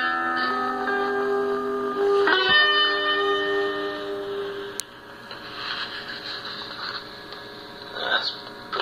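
Guitar music with long, ringing chords. A new chord is struck about two seconds in and rings out, then fades away about halfway through, leaving only low background noise.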